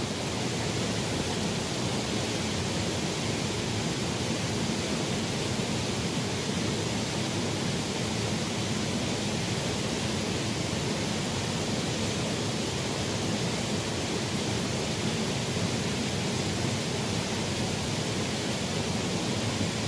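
Steady rushing of a flowing stream's water, an even noise with no separate splashes.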